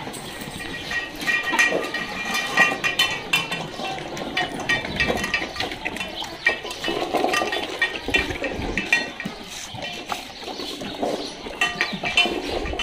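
Dogs eating from stainless steel bowls: the bowls clink and scrape against the tiled floor, with many short sharp clicks and a brief metallic ringing.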